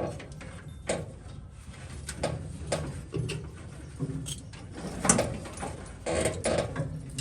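Irregular clicks, knocks and scraping of hand work on an old truck's wiring harness, a few louder knocks about five seconds in.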